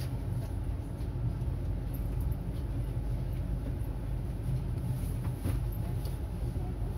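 Oslo tram in motion, heard from inside the passenger cabin: a steady low rumble with a few faint clicks.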